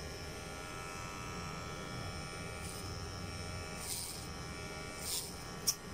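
Electric hair clippers buzzing steadily as they cut hair over a comb, with a few short rasps and a brief click near the end.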